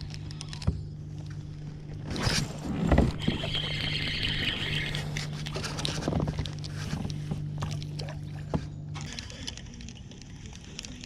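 Kayak on the water: a steady low hum that stops about nine seconds in, with splashing and handling noises, loudest about three seconds in.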